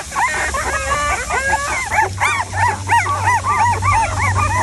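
A litter of newborn puppies squealing and whining together: many short rising-and-falling high cries overlap, several a second.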